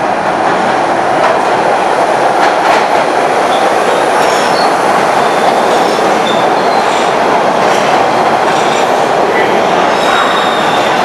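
MBTA Orange Line subway train pulling into an underground station: a steady rumble of steel wheels on rail, with a few clicks from the wheels over rail joints in the first three seconds. Short, high wheel squeals come from about four seconds in as the train slows to stop.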